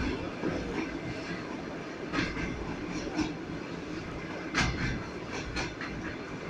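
Passenger train running, heard from inside the carriage: a steady rumble with the wheels knocking over rail joints at uneven intervals, the loudest knock about four and a half seconds in.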